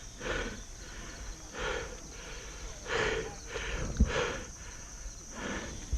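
Heavy breathing close to the microphone, about six hard breaths a second or so apart, over a steady high drone of insects such as crickets. A single sharp click about four seconds in.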